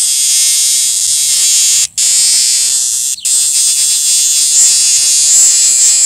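A cicada held between the fingers gives its loud, harsh, high-pitched distress buzz. The steady buzz breaks off briefly twice, about two and three seconds in.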